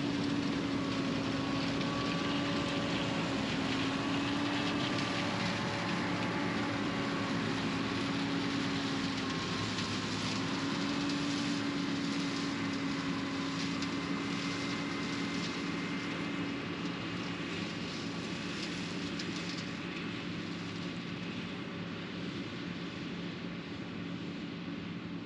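John Deere 9500 combine's diesel engine running steadily, a constant hum that wavers slightly in pitch, growing a little quieter toward the end.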